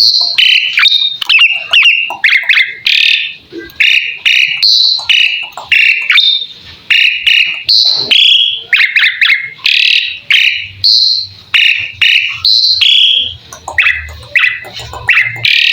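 Asian pied starling (jalak suren) singing continuously: a fast run of short, loud whistled and chattering notes, about two a second, some of them rapid trills, changing pitch from note to note.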